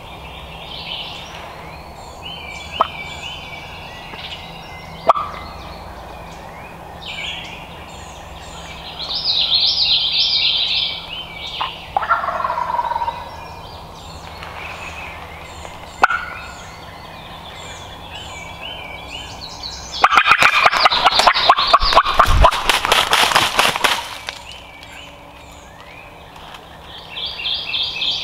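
Wild turkey gobbling once, a loud rapid rattling call lasting a few seconds, about two-thirds of the way through, over songbirds singing in the woods.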